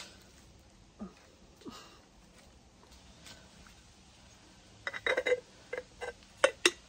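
Small objects being handled: a quiet stretch with a couple of faint ticks, then a quick run of light clicks and knocks about five seconds in, with two sharper clicks near the end.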